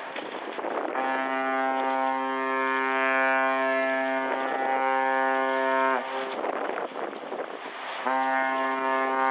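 Ship's horn sounding long, steady blasts: one lasting about five seconds that sags slightly in pitch as it stops, then a second starting about eight seconds in. These are departure signals as the ship leaves the pier.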